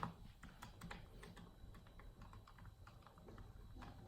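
Faint, irregular light clicks and taps of a 2mm hex wrench and small screws being worked into the plastic center skid plate of an RC truck chassis, driven by hand.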